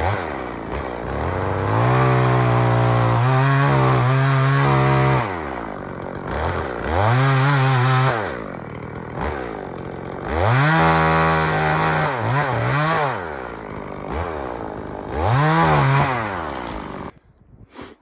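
EFCO two-stroke chainsaw revved to full throttle four times, dropping back to idle between cuts, with short blips of throttle in between, while cutting a felling notch in a standing tree. The engine is shut off near the end.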